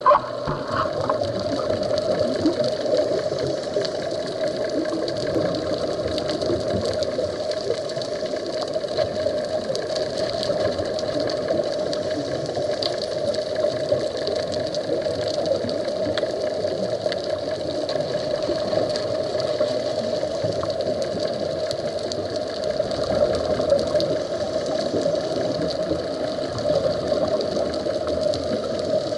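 Underwater ambience heard through a camera's waterproof housing: a steady, muffled whirring drone with a faint bubbling texture.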